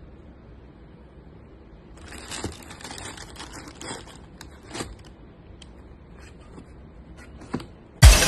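Tissue paper crinkling and a cardboard shoebox being handled around a sneaker, a few seconds of rustling with several sharp knocks, then scattered faint clicks. Loud electronic music starts suddenly near the end.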